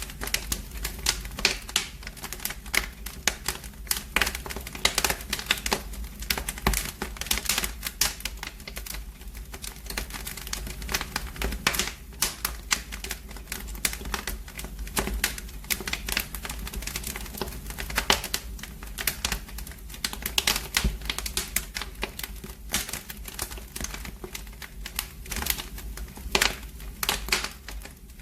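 Wood fire in a fireplace crackling, with dense, irregular pops and snaps over a steady low rumble.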